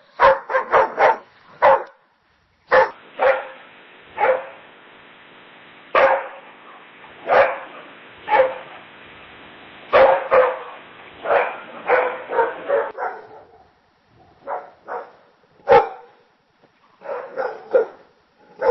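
Dogs barking. There is a quick run of barks at first, then after a brief gap single barks come about one a second over a steady hiss. Near the end a few more barks come in scattered clusters.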